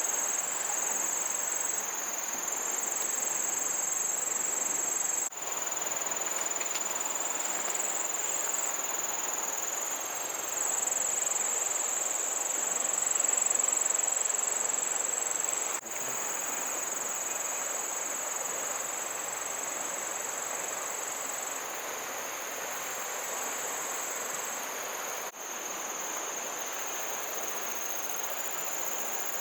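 Steady high-pitched insect chorus of cicadas or crickets shrilling continuously over an even rushing hiss, broken by brief dips about three times.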